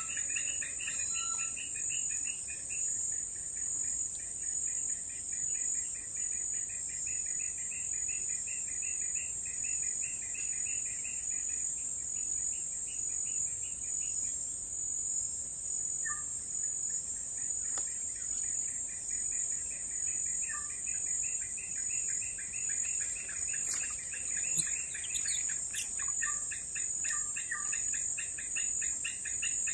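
Steady high-pitched drone of insects such as crickets or cicadas, with a second, pulsing trill that fades out about halfway and comes back later. A few short bird chirps come through now and then.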